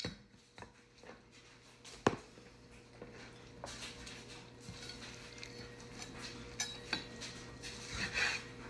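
A heavy cleaver knocks once on a wooden cutting board about two seconds in, then light taps, clinks and rustling as a raw turkey is handled and turned on the board between chops.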